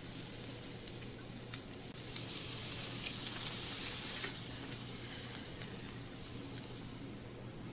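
Meat sizzling on a yakiniku grill: a steady hiss with a few faint pops of spitting fat.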